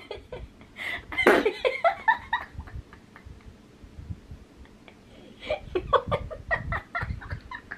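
Two girls laughing: breathy fits of giggling, strongest about a second in, dying down, then picking up again near the end.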